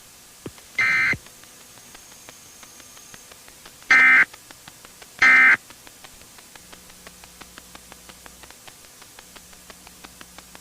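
Three short bursts of EAS digital data tones: the end-of-message (EOM) signal that closes an Emergency Alert System message. Each burst is well under half a second; the first comes about a second in, the other two near four and five seconds. Between and after the bursts runs a steady faint ticking, about four ticks a second.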